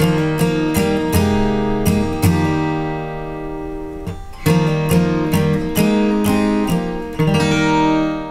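Solo acoustic guitar playing a run of plucked and strummed chords, with a short lull about four seconds in, ending on a last chord left to ring out.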